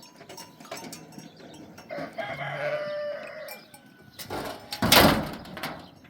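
A rooster crowing once, about two seconds in, a call of a little over a second. Near the end comes a short, loud burst of noise, the loudest sound here.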